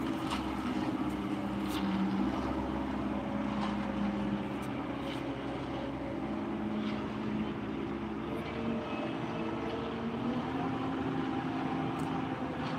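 Engine of a yellow self-loading concrete mixer running steadily, its pitch shifting a little now and then as the machine works.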